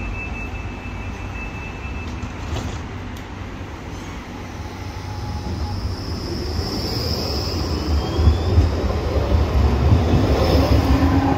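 Tram running on street track, its low rumble growing louder about halfway through. High-pitched wheel squeal rings out around two-thirds in and again near the end.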